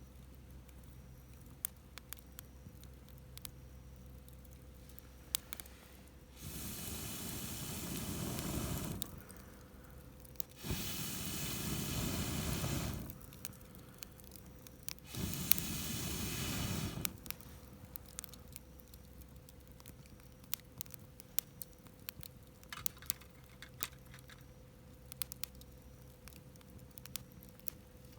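Wood campfire crackling and popping, broken by three long blows of air through a fire-blowing pipe into the embers, each rushing for about two seconds, spaced a few seconds apart.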